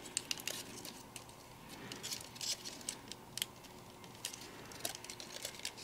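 Faint, scattered light ticks and rustles of die-cut cardstock pieces being handled and slotted together as tabs are tucked into notches.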